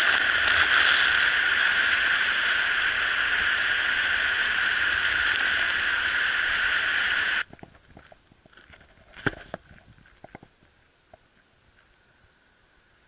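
Waterfall rushing in a steady, loud roar of falling water that cuts off abruptly about seven seconds in. It gives way to near-quiet with a few faint clicks and a short knock.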